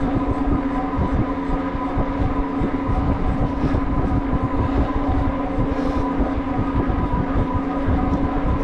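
750-watt Synch Super Monkey electric bike riding at steady speed on pedal assist: a steady electric-motor whine over fat-tyre rumble on tarmac, with wind buffeting the chest-mounted camera's microphone.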